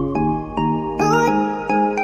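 Background music: a light, bouncy tune of short pitched notes at a steady beat, with a brief sliding high note about a second in.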